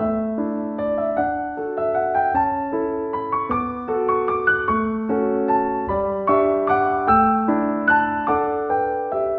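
Background piano music: a gentle melody of struck notes over sustained chords, a new note roughly every half second.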